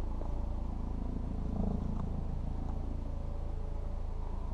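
A steady low rumble from a body-worn camera's microphone as a hiker scrambles over rock, with a few faint scuffs and taps about a quarter second, two seconds and two and a half seconds in.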